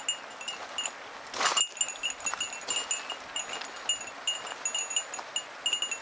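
A small metal bell jingling over and over in quick, irregular rings at the same few high pitches. About a second and a half in, a brief rushing noise is the loudest moment.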